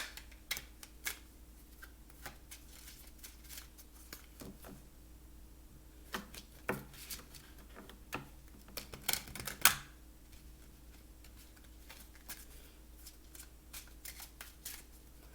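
Oracle cards being shuffled and handled: a scattered series of soft flicks and taps, with a louder flurry about nine seconds in, over a faint steady hum.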